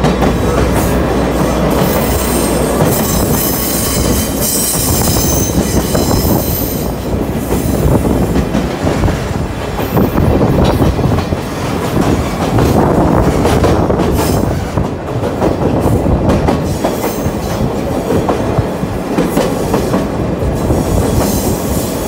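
Open trolley car of the Sagano Scenic Railway running on its TR209 bogies: a loud, continuous rumble of wheels on rail with rail-joint clacks. High wheel squeal comes and goes on the curves, mostly in the first half.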